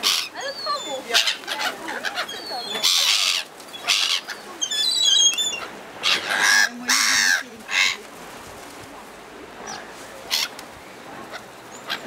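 Gulls calling with a series of loud, harsh cries, the strongest about three seconds and about seven seconds in. Short high chirps from small birds come between them.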